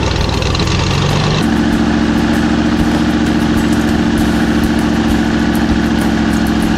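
Airboat engine idling steadily and loudly. About a second and a half in, the sound changes suddenly to a smoother, steadier drone.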